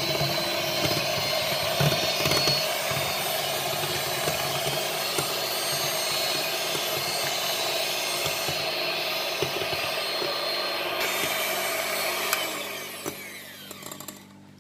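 Electric hand mixer running steadily, its beaters whisking a thin cream and condensed-milk mixture in a glass bowl, then winding down and stopping near the end.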